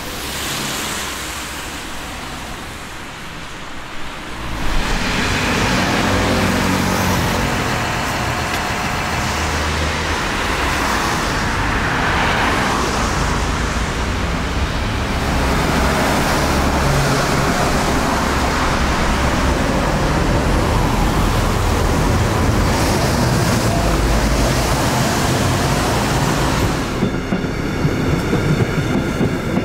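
Road traffic noise: a steady low rumble of car engines and tyres in dense, slow traffic. It is softer at first and grows louder about four and a half seconds in.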